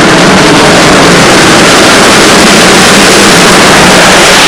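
Borsig-built 2-8-2 Mikado steam locomotive 06 018 passing close with a freight train: a loud, steady mix of exhaust and running gear that gives way to the freight wagons rolling by near the end.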